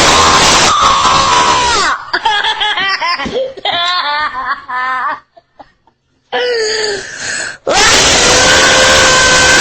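A young boy laughing and shrieking close into a Ring doorbell camera's microphone: a long, very loud shriek at the start, then bursts of giggling, a short pause, and another long, very loud shriek from near the end.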